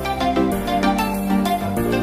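Background music: sustained chords that change about every half second to a second, over a steady beat.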